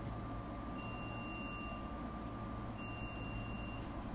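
Two steady electronic beeps, each about a second long and a second apart, inside a stopped SEPTA regional rail car, over the car's steady high-pitched whine and low rumble.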